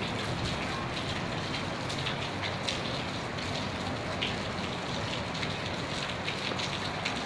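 Steady rain falling on wet paving and plants, a constant hiss dotted with many close drips ticking.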